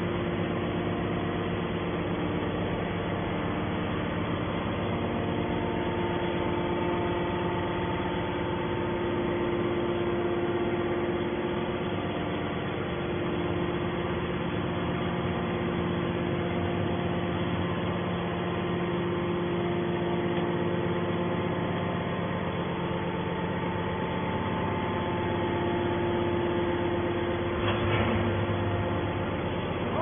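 Hydraulic power unit of a scrap metal baler running steadily, an even machine hum with several held tones. A brief knock comes about two seconds before the end.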